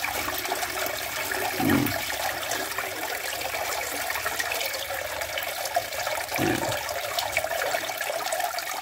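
Salt water pouring in a steady stream from a tilted plastic bucket through a metal colander into a bucket below, draining the brine off rice seed that sank in a salt-water seed-selection test. Two brief low sounds come about two seconds in and again about six seconds in.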